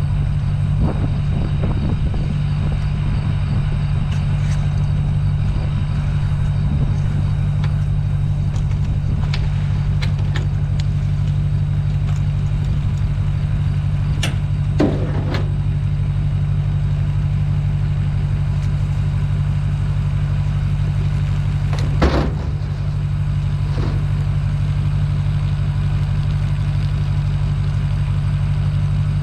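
Vehicle engine running at a steady speed while driving, with a few brief knocks and rattles, the loudest about two-thirds of the way through.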